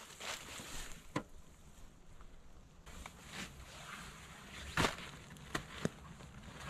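Faint rustling of dry leaves with a few light knocks, the loudest about five seconds in, as a hiking backpack is set down against a fallen log.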